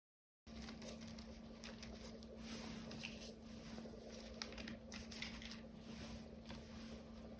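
Small scratching and clicking as the filled stem cavities of 3D-printed keycaps are picked clean. The ticks are irregular and quiet over a faint steady hum, and they begin about half a second in.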